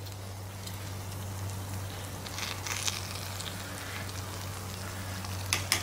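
One-pot chicken, zucchini and rice simmering in an open camp pot, crackling and sizzling softly over a steady low hum. A metal spoon clinks against the pot a few times, most clearly near the end.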